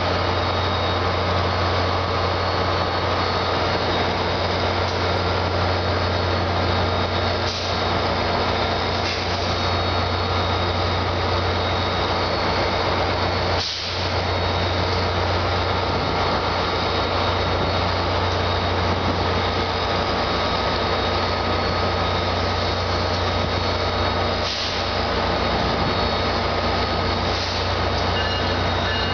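Diesel locomotives idling at a terminal platform, giving a steady, loud low hum.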